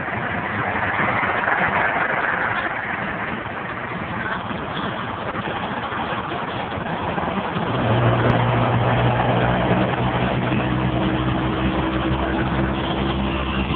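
Road and tyre noise inside a vehicle cruising on a freeway, a steady rushing haze. About halfway through, a louder, steady low engine drone joins and holds.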